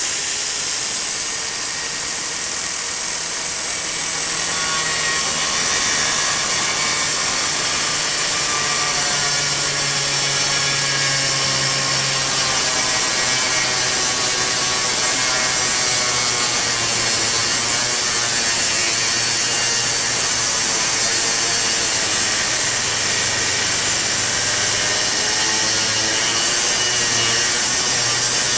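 Ryobi angle grinder fitted with a circular-saw blade running continuously as it cuts into the wooden stem of a boat, its motor pitch wavering slightly under the load.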